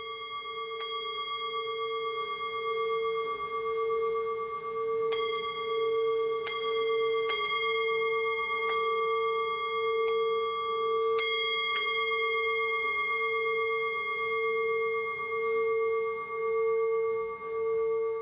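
Singing bowl ringing with a slow, pulsing hum, swelling over the first few seconds, while light strikes several times add bright higher overtones.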